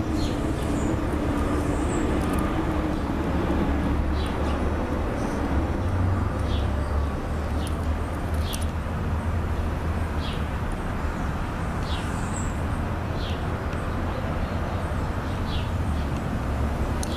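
Background ambience: a steady low rumble with short high chirps about once a second, birds calling.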